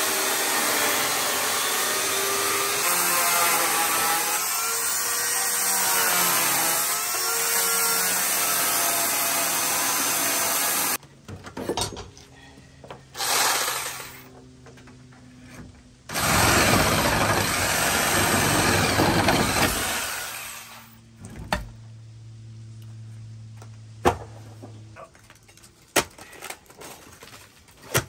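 Corded electric chainsaw cutting through wooden deck framing, its motor pitch wavering as it bogs in the wood, then stopping abruptly about eleven seconds in. Short bursts of saw noise, one lasting a few seconds, and a few sharp knocks follow.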